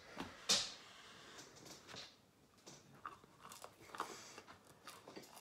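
A person biting into and chewing a calzone close to the microphone: one sharp crunch about half a second in, then soft chewing with small mouth clicks.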